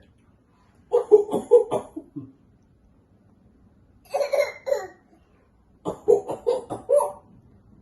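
A small child's pretend coughing, put on to get a parent to play: three bouts of short, quick coughs, about a second in, around four seconds in, and again near six seconds in.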